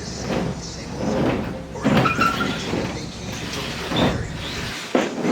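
Knocks, bumps and scraping as a heavy cast-iron treadle sewing machine table is shifted and carried out of a box truck, with several hard thuds of iron and wood against the truck bed.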